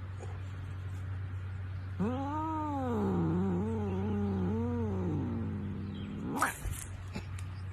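A domestic cat yowling: one long, wavering, drawn-out call of about three seconds, then a short, sharp cry that rises steeply in pitch about six and a half seconds in. A steady low hum runs underneath.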